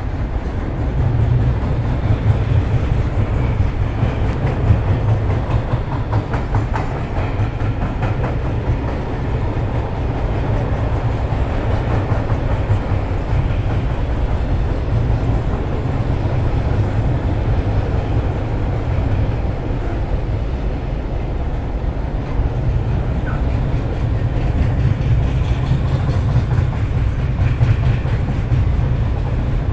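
Freight train running on the rails: a steady, continuous sound, heaviest in the low end, that neither builds nor fades.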